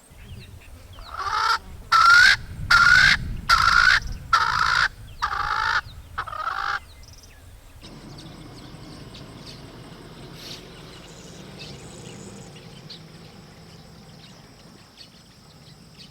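A large bird calls about seven times in a loud, evenly paced series, each call rising then falling in pitch. The series stops about seven seconds in, leaving quieter bush ambience with faint bird chirps.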